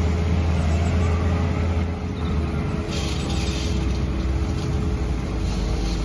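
Water spraying steadily over a muddy plastic toy loader as it is washed, with the constant hum of a pump motor underneath.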